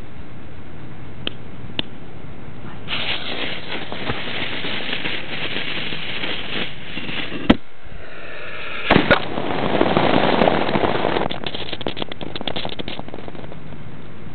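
Firework set off to blow up a coffee pot. It fizzes and crackles for a few seconds, then a sharp bang about halfway through, two more bangs soon after, and a burst of dense crackling that thins out to scattered pops.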